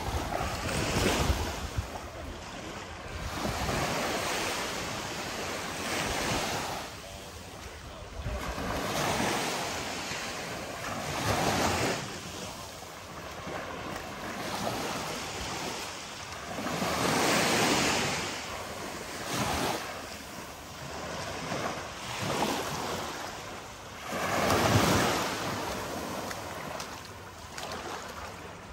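Waves breaking and washing up the shore, swelling and ebbing every few seconds, the biggest surge near the end, with some wind on the microphone.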